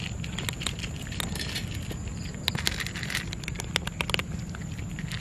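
Kittens crunching dry kibble from a steel bowl: irregular small crunches and clicks, several a second, over a steady low background rumble.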